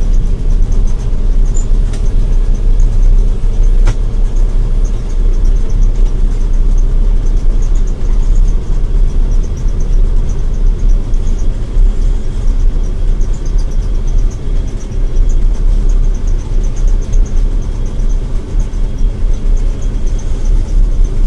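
John Deere 9700 combine running steadily under load while harvesting wheat: a loud, constant deep drone of the diesel engine and threshing machinery, with the straw chopper running.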